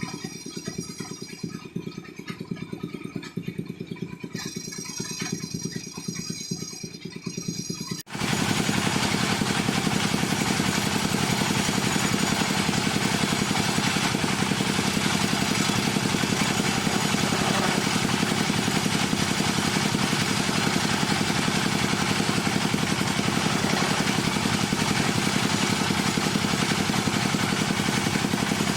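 Woodworking power machinery running steadily: a quieter hum with a thin steady whine for the first few seconds, then, after a sudden cut about eight seconds in, a much louder continuous machine noise full of cutting hiss with a steady low drone.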